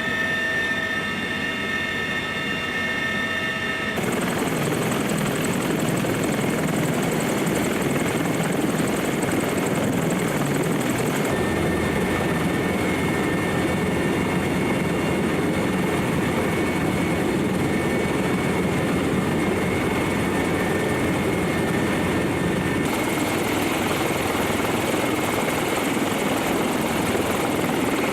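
Sikorsky CH-53E Super Stallion heavy-lift helicopter running, a loud steady rotor and engine noise. In the first few seconds a set of steady high turbine whine tones sits over it. The sound changes abruptly a few times, as if from one shot to the next.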